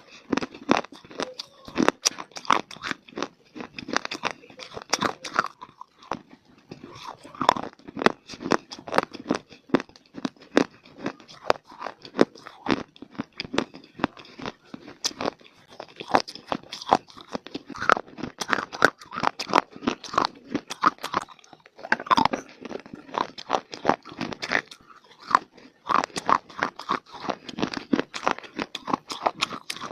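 Close-miked chewing and crunching of dry mitti clay: a steady run of sharp, irregular crunches with brief lulls about a fifth of the way in and about two-thirds through.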